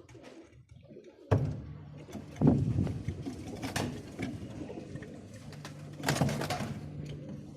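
Pigeons cooing, a steady low hum-like murmur, broken by a sudden loud burst of noise about a second in and louder bursts around two and a half and six seconds.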